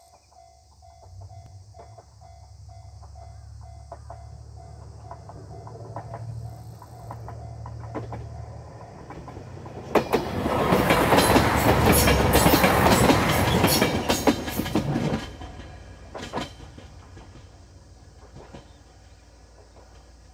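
KiHa 187 series "Super Oki" limited-express diesel railcar approaching and passing close by. Its engine rumble builds, then for about five seconds the engine and the wheels are loud, clacking over the rail joints, before the sound fades as it runs away toward the station.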